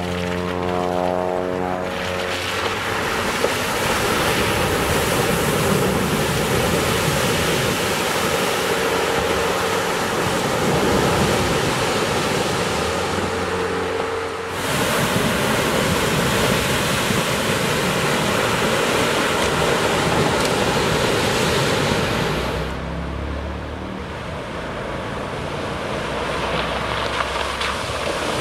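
Wind rushing over the microphone, a loud even rush that drowns most else. A pickup's Duramax diesel engine is heard running steadily for the first couple of seconds, and again faintly under lighter wind near the end.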